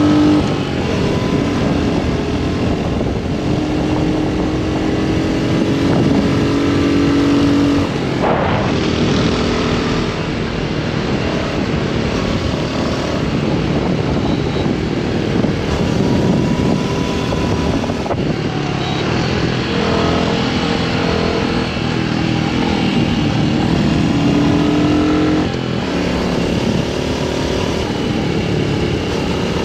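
Royal Enfield Hunter 350's 349 cc single-cylinder engine running under way. Its exhaust note steps up and down in pitch several times as the throttle and gears change.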